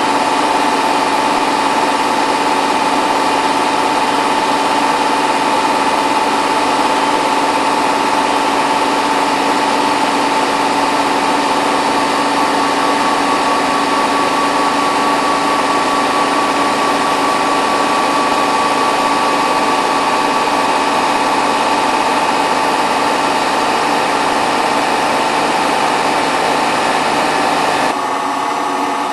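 Hotpoint WT960 washing machine's drum motor running a steady high-pitched whine during its final fast spin at 1600 rpm. Near the end the whine drops out suddenly and the sound gets a little quieter.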